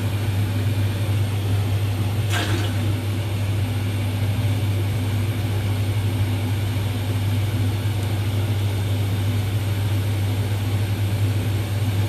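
A steady low motor or fan hum, with one brief sharp clink about two seconds in.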